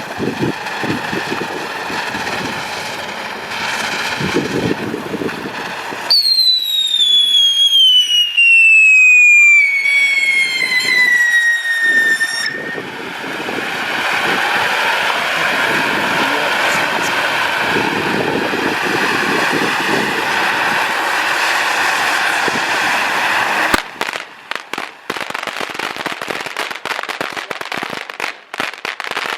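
Large consumer firework fountain burning: a steady rushing hiss of sparks, broken by a long whistle that falls steadily in pitch for about six seconds, then dense crackling of many small pops in the last five seconds.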